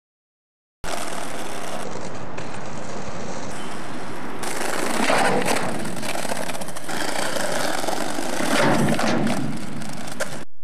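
Silent for about the first second, then skateboard wheels rolling over rough pavement, a steady rumble with scattered clicks and knocks from the board.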